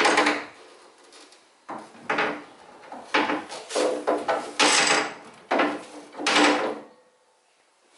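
Rear tailgate of a 1973 VW Bay Window camper being handled and moved on its hinges as it is refitted: a run of irregular clunks and scraping noises that stops about seven seconds in.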